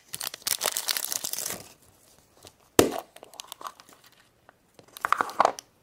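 The wrapper of a surprise egg being torn open and crinkled, with one sharp crack a little before halfway through and more crinkling near the end.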